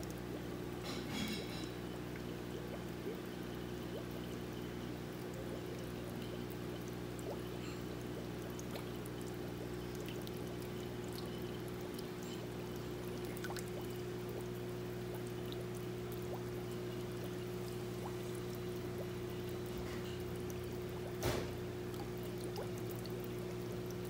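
Water pouring and trickling into an aquarium tank over a steady low pump hum. A single sharp knock comes near the end.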